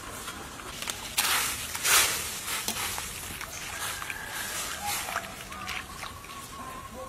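Liquid bubbling and sloshing in a steaming pot as a utensil stirs it, with two short bursts of hiss a little over a second and about two seconds in.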